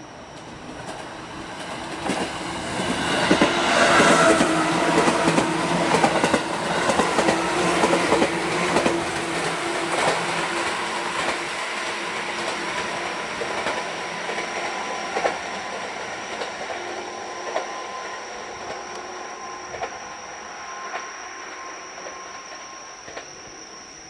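JR 211 series electric train, six cars with four motored, passing close by while accelerating. Its traction motors growl and the wheels clack over the rail joints, loudest a few seconds in, then the sound fades slowly as the train pulls away.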